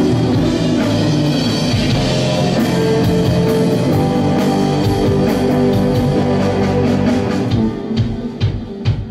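Live rock band playing an instrumental passage: electric guitars, bass guitar and drum kit, with no vocals. Near the end the guitars fall away and the sound thins to separate drum hits.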